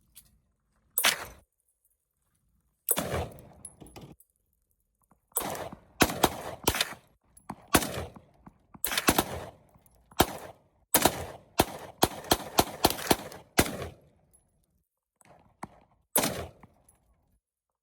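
Gunshots at a shooting range: irregular single shots and quick strings of shots, each a sharp crack with a short ring-out, thickest from about five to fourteen seconds in.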